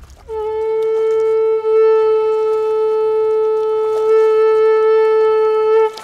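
Conch shell blown in one long, steady, loud note lasting about five and a half seconds, with a brief dip about a second and a half in, then cut off.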